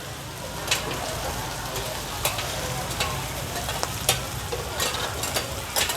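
Bột chiên frying in oil in a giant pan, with a steady sizzle. A metal utensil stirs the pieces and clinks sharply against the pan about once a second.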